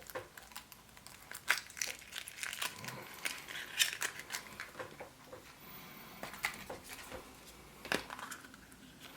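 Foil wrapper of a Kinder Surprise chocolate egg being crinkled and torn off by hand, with many irregular sharp crackles.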